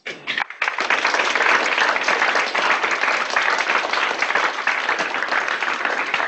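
Audience applauding, many hands clapping together. It begins abruptly, fills out within the first second and holds steady.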